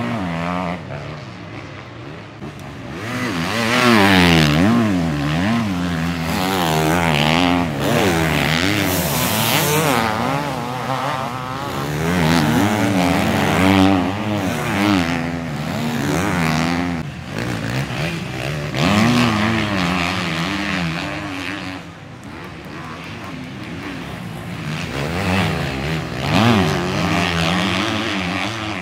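Several 250cc motocross bikes racing, engines revving hard, with the pitch rising and falling over and over as riders open and close the throttle. The sound swells and fades as bikes come past one after another.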